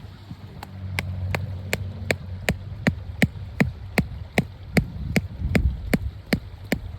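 Hammer blows driving a cut alder stake into a stream bank: a steady run of sharp knocks, about three a second, each with a short ring.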